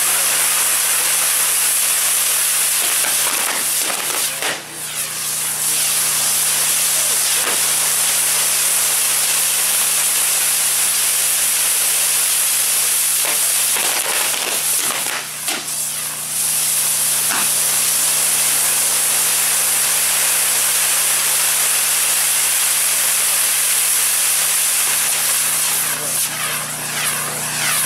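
Castillo fireworks tower burning: a loud, continuous hiss of spark fountains. The hiss briefly thins about four to five seconds in and again around fifteen seconds in.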